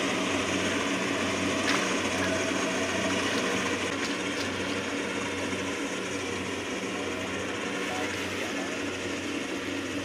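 Steady drone of a rice combine harvester's engine running, easing off slightly over the seconds.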